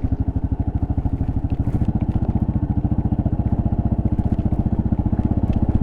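2024 Kawasaki KLR650S's single-cylinder engine running steadily under way on a dirt trail, with a few light clicks over it.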